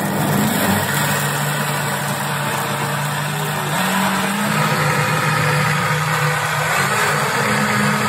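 JTC OmniBlend V high-speed blender running, crushing frozen raspberries, sprouted oats and buckwheat with water into a smoothie. A loud, steady motor whir whose hum shifts in pitch a few times as the mix turns smooth.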